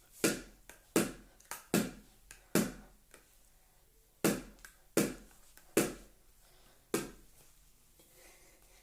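A small ball knocking against a hard surface about nine times at uneven intervals, each knock sharp with a short ring.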